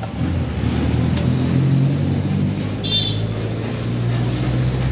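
A steady low engine hum, like vehicle traffic running nearby, with a brief high-pitched beep about three seconds in.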